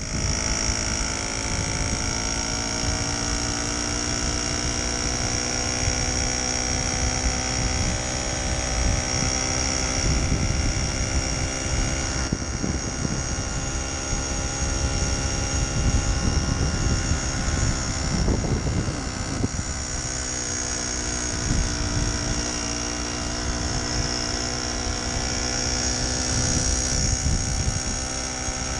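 1969 Solex 3800 moped's 49.9 cc single-cylinder two-stroke engine running steadily under way, holding an even pitch.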